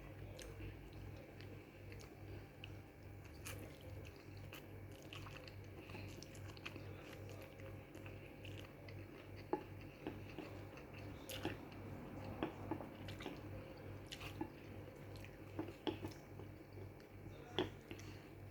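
A person chewing food close to the microphone, with scattered small wet clicks and mouth sounds. A faint steady low hum runs underneath.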